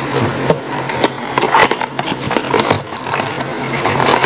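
A cardboard toy box being opened by hand and its plastic-bagged parts pulled out: irregular scraping, rustling and crackling of cardboard and plastic packaging.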